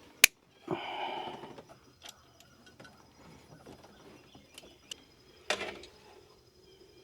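A single sharp snip of wire cutters cutting through a tractor wiring-harness wire, then scattered small clicks and handling noise from working the wire, with a louder rustle about five seconds later.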